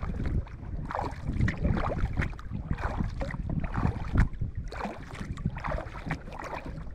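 Kayak paddle strokes, the blades dipping and splashing in the water at an uneven pace, with wind rumbling on the microphone.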